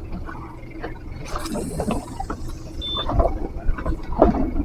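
A small fishing boat's motor rumbling low and steady, with irregular splashing and knocking noises on board.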